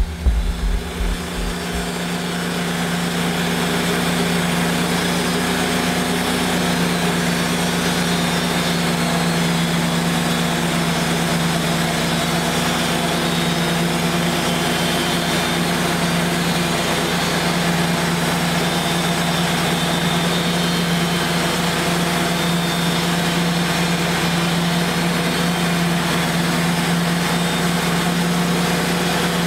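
Wood-Mizer LT35 portable band sawmill running steadily under load, its band blade sawing a slab off a walnut log.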